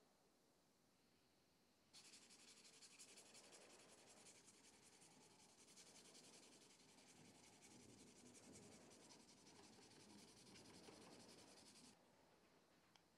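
Very quiet: a faint, dry scratching rub starts suddenly about two seconds in and cuts off near the end.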